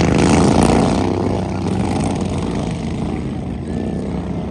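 Racing lawn mower engines running hard at high revs, the loudest in the first second, then growing gradually fainter.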